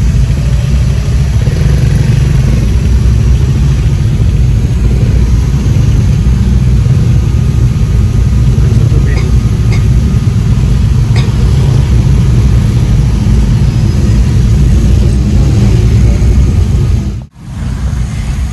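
Steady low engine and road rumble heard inside a vehicle's cab as it moves in slow, congested traffic. The sound drops out suddenly for a moment near the end.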